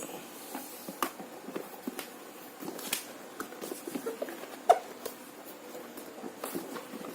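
Hands handling tight packaging, rustling and scraping while working a stuck item out of a cardboard box, with scattered clicks and one louder knock about four and a half seconds in.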